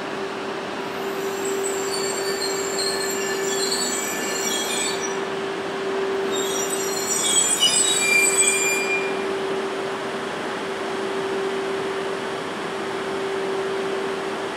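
E2 series Shinkansen train braking to a stop at a platform. A steady hum runs throughout, with high-pitched squealing in two spells, about a second in and again around six to nine seconds in; the second spell is louder.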